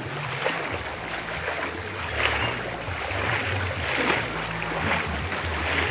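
Wind buffeting the microphone in an uneven low rumble over a steady outdoor hiss.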